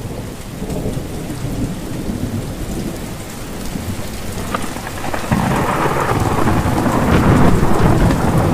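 Rain falling steadily with thunder rumbling; a louder, longer roll of thunder builds about five seconds in.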